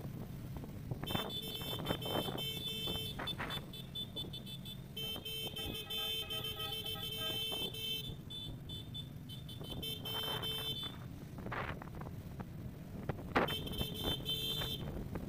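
A high-pitched electronic tone pulsing rapidly on and off in four bursts of one to three seconds each, over a steady low rumble.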